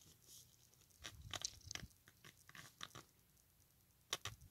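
Faint, scattered plastic clicks and creaks from fingers handling and pressing on an opened HP 10s scientific calculator, with a small flurry of clicks about a second in and one sharper click near the end.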